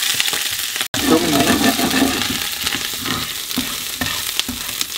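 Chopped garlic and chili sizzling in hot oil in a non-stick frying pan while a wooden spatula stirs them. The sound cuts out for an instant about a second in.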